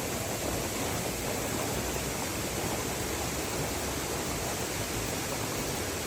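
Small mountain waterfall rushing steadily, running high after heavy rain.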